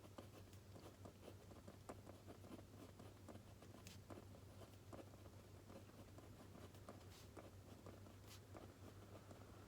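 Faint writing on paper: a pen or pencil scratching in short strokes, with small taps, over a steady low hum.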